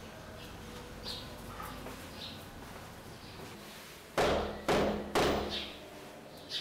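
Three loud knocks on a door, about half a second apart, each with a short ring in the hallway.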